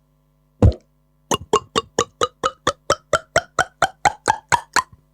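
Beatboxer's mouth-made sound effect: one low thump, then a quick, even run of about sixteen hollow pops, around four or five a second, their pitch shifting from pop to pop.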